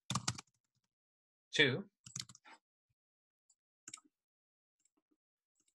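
Typing on a computer keyboard: a few scattered key taps, then a single click about four seconds in.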